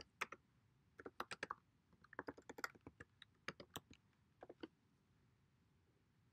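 Typing on a computer keyboard: short bursts of keystrokes that stop a little before five seconds in.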